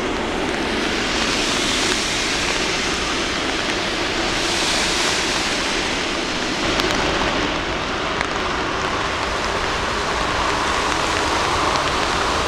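Boeing 747-8F freighter's GEnx jet engines running, a steady rushing noise mixed with the hiss of rain. In the last few seconds a rising whine comes in as the engines spool up toward takeoff thrust.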